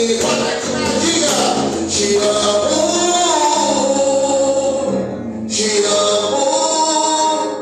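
Live gospel worship music: a church band playing with a sung melody over it, lines held and gliding.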